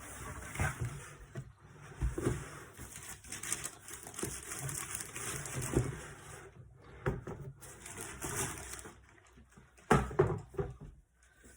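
A cardboard sneaker box being opened and its contents handled: stretches of rustling with scattered soft knocks, and a couple of louder knocks about ten seconds in.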